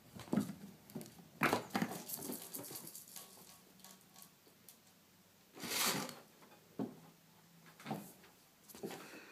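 Kittens at play: paws thumping and scrabbling on a wooden floor and a cardboard box. Irregular knocks throughout, with a longer rustling scrape a little past the middle.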